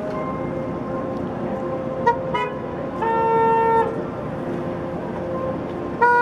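City traffic with car horns honking: two quick beeps about two seconds in, then a single long horn blast of about a second, and another loud honk starting at the very end, over the steady noise of passing cars.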